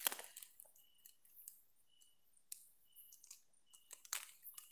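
Faint scattered clicks and handling noises, the sharpest right at the start, with a few short faint high chirps in between.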